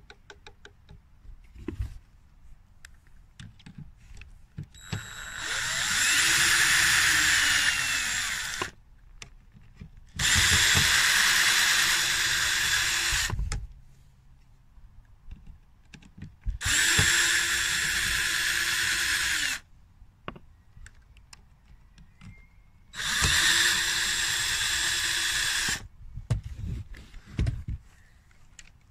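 Small electric screwdriver running in four bursts of about three seconds each, each ending as the motor winds down. It is turning the screws of a 3D-printed plastic gearbox cover, with small clicks of handling between the bursts.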